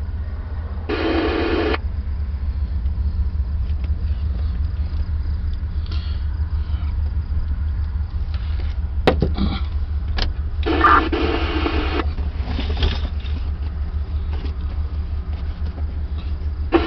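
Scanner radio opening up briefly twice without a voice, short bursts of noise, with a couple of sharp clicks, over a steady low rumble.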